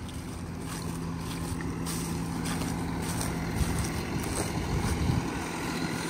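John Deere tractor's diesel engine running steadily, a low hum that gets a little rougher past halfway.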